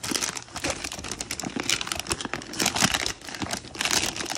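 Shiny foil gift-wrapping paper being crinkled and torn by hand as a present is unwrapped, a rapid, continuous crackle.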